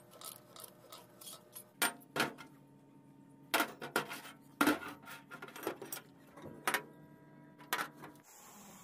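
Steel pieces clinking and knocking against a steel-plate workbench as a square bar and a short pipe section are set down and shifted, each knock ringing briefly. A steady hiss takes over near the end.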